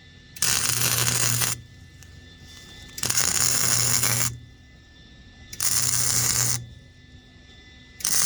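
Welding in short bursts: a crackling with a low hum under it, each burst about a second long, starting and stopping sharply, about every two and a half seconds.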